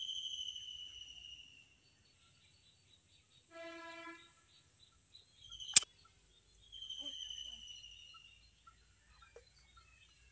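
A bird calls twice with a long, slightly falling whistle. A short steady horn-like tone sounds about three and a half seconds in, and a single sharp click, the loudest sound, comes near the middle. A faint steady high hiss and scattered small chirps run underneath.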